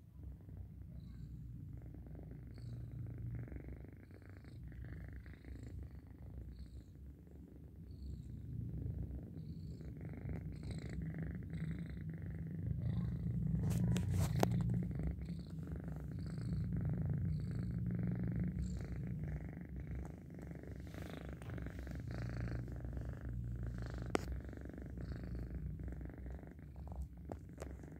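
Young cat purring steadily at close range, a low rumble that swells and eases every second or two. A few faint clicks come about halfway through and again near the end.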